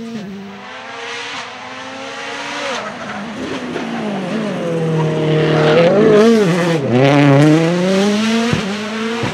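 Rally car engine revving hard through gear changes as the car comes closer, loudest about six to seven and a half seconds in, where the pitch drops sharply twice on braking and downshifts before climbing again as it accelerates away.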